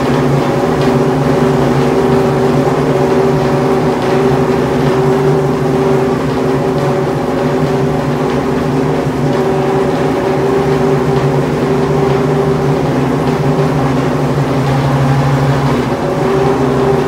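Nissan GT-R GT1 race car's 5.6-litre V8 idling steadily while it warms up.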